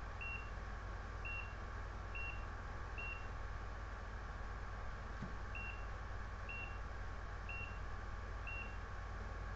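ECG patient monitor giving a short high beep with each detected heartbeat, a little under a second apart, with a pause of about two and a half seconds in the middle, over a steady low electrical hum.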